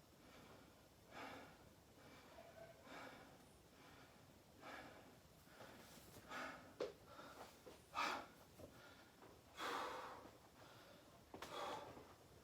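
A person breathing hard, recovering from a set of burpees: soft, evenly spaced breaths at first, then louder, more irregular gasping breaths from about halfway in.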